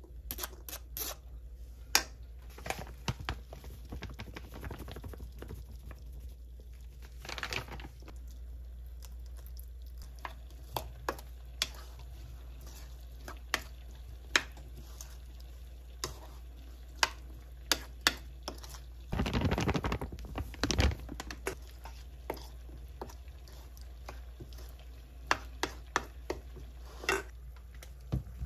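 Scattered light clicks and taps of kitchen or table handling, with a rustling burst lasting about two seconds, two-thirds of the way through, over a low steady hum.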